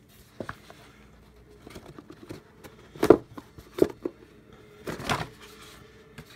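Cardboard board-game box being handled: a light knock about half a second in, two sharper knocks at about three and four seconds, and a short rubbing scrape about five seconds in.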